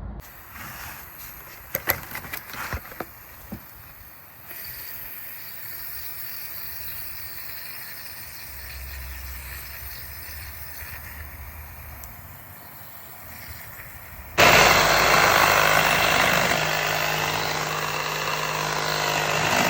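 A few knocks, then a low steady hum; about two-thirds of the way through, a loud machine with a low steady drone starts up and keeps running.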